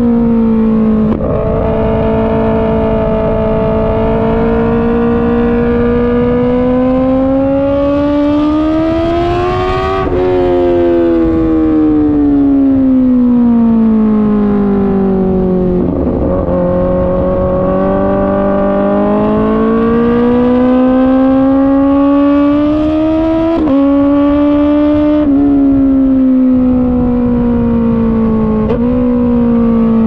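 2021 Kawasaki ZX-10R's inline-four with an SC-Project exhaust, heard on board at track speed. The engine note climbs for about ten seconds, falls away as the bike slows, climbs again, and near the end jumps sharply up and down in pitch a few times.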